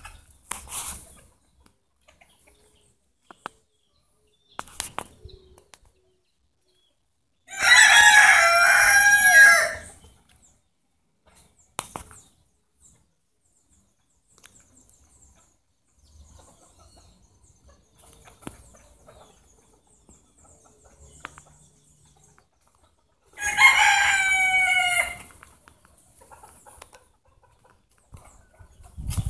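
A rooster crowing twice, each crow about two seconds long, the first about a quarter of the way in and the second near the end, with faint scattered clicks in between.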